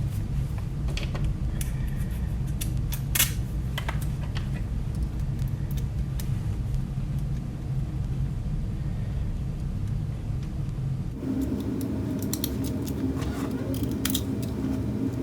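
Scattered light clicks and taps of small metal hardware, screws and a bracket, being handled and worked with a small screwdriver, over a steady low hum. The hum changes about eleven seconds in.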